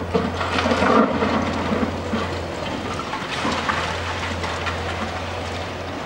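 Hydraulic crusher of a demolition excavator breaking into a concrete building: concrete cracking and rubble crashing down, loudest about a second in, then a fainter crumbling rattle of falling debris. A steady low hum runs underneath.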